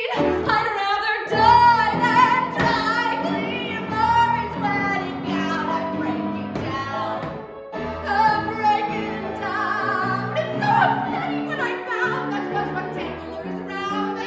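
A woman singing a musical-theatre song with instrumental accompaniment, her sung lines broken by a couple of short pauses about halfway through.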